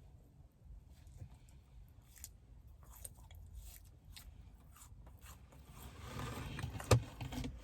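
Chewing a lemon bar mochi donut, with soft wet mouth clicks that grow louder about six seconds in and a single sharp click near the end.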